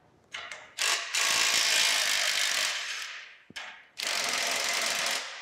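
Cordless impact wrench hammering at the square-head nut of a rusty carriage bolt on the forge's leg bracing. It gives a few short bursts, then a long run of rapid hammering that fades after about two seconds, a brief blip, and a second steady run of about a second.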